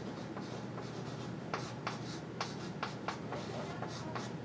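Handwriting: a run of short, scratchy pen strokes, several a second, as equations are written out.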